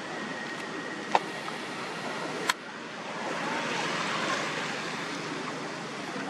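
Steady outdoor rushing noise that swells for a couple of seconds about three seconds in, with two sharp clicks, about one second and two and a half seconds in.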